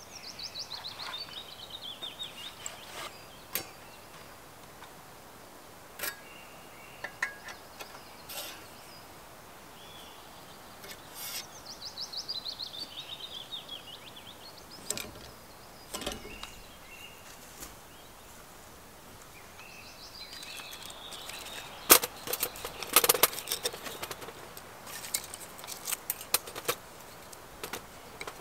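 A songbird repeats a short song three times, each a fast trill falling in pitch. Between the songs come scattered light knocks and clicks from handling wood and gear. The loudest is a sharp knock about two-thirds of the way through, followed by a busy run of clicks.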